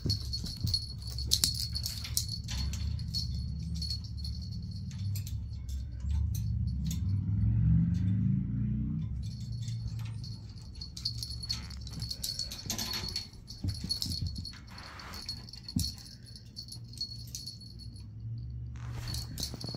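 Metal tags and bell on a Chihuahua's harness jingling and clicking as the dog scrambles around with a tennis ball on carpet. A low rumble swells and rises in pitch about six to nine seconds in.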